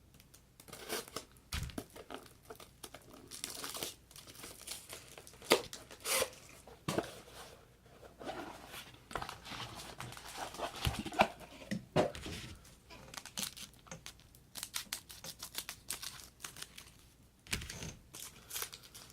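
Trading card pack wrapper being torn open and crinkled by hand, with cards rustling as they are handled; irregular crackles and snaps.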